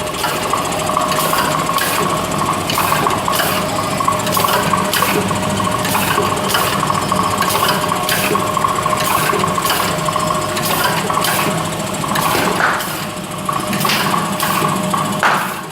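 Automatic packing machine running: a steady motor hum with a regular mechanical clack about twice a second.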